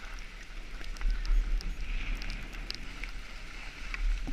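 Wind buffeting the microphone in a steady low rumble while skiing, over a steady hiss of skis sliding on snow, with a few small scattered clicks.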